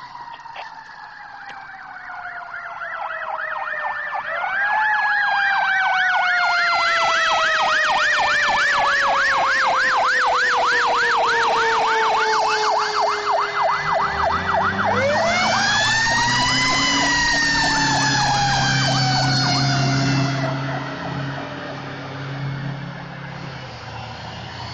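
Fire truck sirens: a mechanical siren's long wail winding slowly down, with an electronic yelp warbling rapidly over it from about four seconds in. Past halfway the mechanical siren spins back up and winds down again while a deep steady low drone joins under it, and it all gets quieter near the end as the truck moves off.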